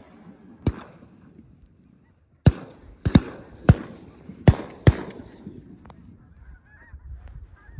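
Snow geese calling, with a volley of sharp shotgun shots: one about a second in, then six in quick succession over the next few seconds.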